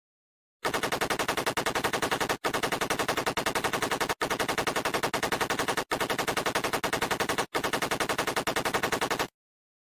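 Submachine gun firing on full automatic, an even rapid rattle of about nine shots a second. It starts just under a second in and runs as five long bursts with brief breaks between them, then stops shortly before the end.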